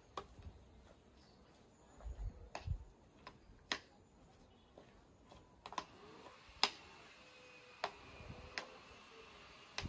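Metal spoon clicking and scraping against a stainless steel pot while mashed potato and fried onions are mixed: scattered sharp clicks at irregular intervals, with a few soft thuds about two seconds in.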